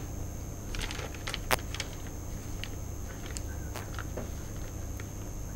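Irregular light taps and short scratches of letters being written on a board, with one sharper tap about a second and a half in, over a steady low hum and a faint high whine.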